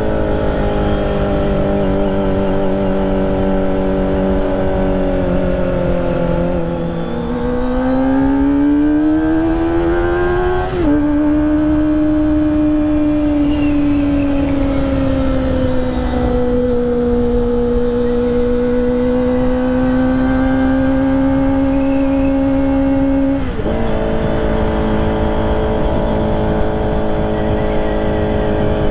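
Kawasaki ZX-25R's 250 cc inline-four running through a ProSpeed Shark high-mount slip-on silencer while riding. It holds a steady note, rises in pitch as it accelerates from about seven seconds in, drops sharply at a gear change around eleven seconds, then holds fairly steady before its pitch changes suddenly again near twenty-three seconds.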